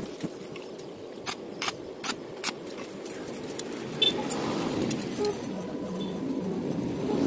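Stainless steel pipe pieces clinking and tapping against each other as they are handled and fitted together: a few sharp metallic ticks in the first few seconds and another about four seconds in, over a steady low background noise.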